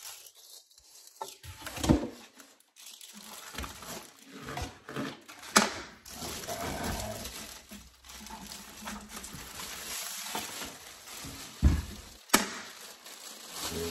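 Plastic bag crinkling and rustling as it is pulled off a portable power station, with a few sharp knocks of the unit and its foam packing inserts against the table.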